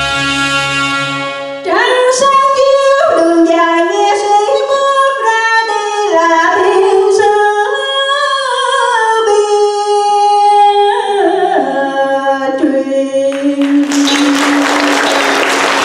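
A woman singing a slow, ornamented Vietnamese song line into a microphone, her voice sliding between notes, after a held chord of accompaniment. Near the end the line finishes and the audience breaks into applause.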